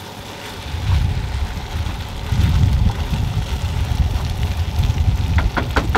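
Wind rumbling on the microphone in uneven gusts, over the faint sizzle of fried rice frying in a pan on a propane camp stove. A few quick clicks of the wooden spatula against the pan come near the end.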